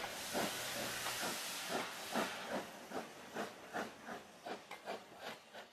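Steam locomotive chuffing at about three beats a second over a steady hiss of steam, fading out.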